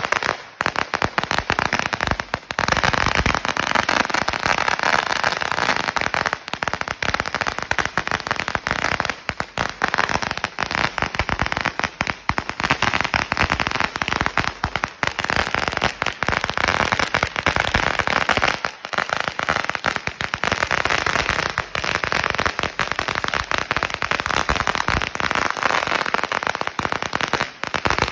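A long firecracker roll of 16,000 crackers going off in a rapid, continuous chain of sharp bangs, too fast to count, keeping up without a break.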